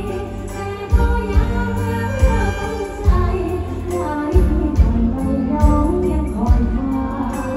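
A woman singing a mor lam song live into a handheld microphone over the band's heavy bass and drum beat, amplified through a PA system.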